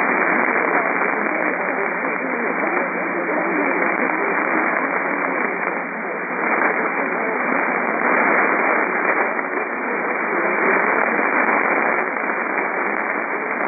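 Radio receiver hiss and static from a weak, narrow-band broadcast signal, with a steady low hum underneath and faint, unintelligible speech buried in the noise.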